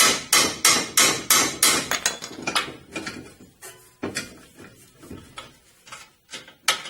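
Hammer blows driving the bottom bolt through the rear strut's lower mounting holes on a VE Commodore: about three strikes a second for the first few seconds, then a few slower, spaced strikes. The bolt is a tight fit and has to be hammered through.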